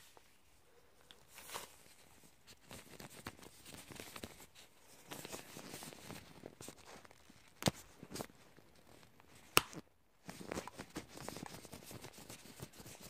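Disposable-gloved hands and tweezers working right against the microphone: irregular scratchy rubbing and small clicks, with two sharp clicks in the second half.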